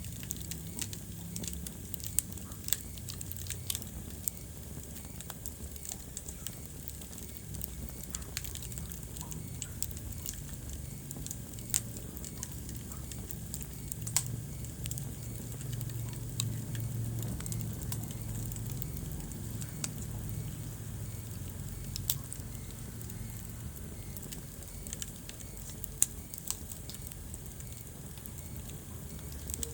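Wood fire burning in a fireplace, crackling with irregular sharp pops over a steady low rumble of the flames.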